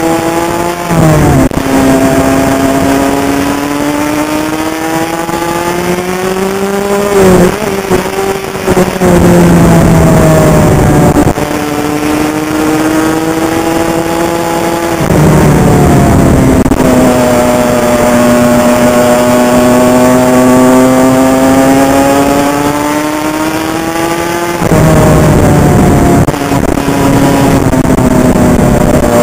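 Honda CR85's 85cc two-stroke single-cylinder engine under way, heard from the rider's head camera. Its revs climb slowly and then drop sharply, about five times, as the bike is ridden through the gears.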